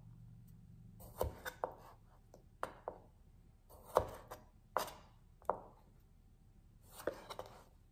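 Kitchen knife halving green grapes on a plastic cutting board: about ten short knocks of the blade against the board, coming in small irregular groups.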